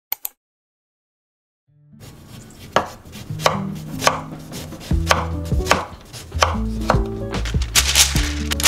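Kitchen knife slicing a lemon on a wooden cutting board: a regular series of sharp chops, roughly one every two-thirds of a second. Near the end, a sheet of parchment paper crinkles as it is spread out.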